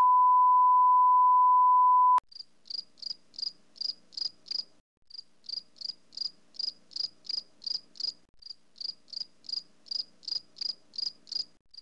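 A loud steady 1 kHz test tone, the bleep that goes with TV colour bars, which cuts off suddenly about two seconds in. Then a cricket chirping sound effect follows: short, even, high-pitched chirps about three a second, with a couple of brief pauses.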